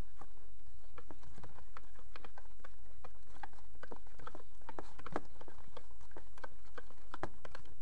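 Slime being mixed and worked by hand in a clear plastic container: a run of small, irregular clicks and taps over a steady low hum.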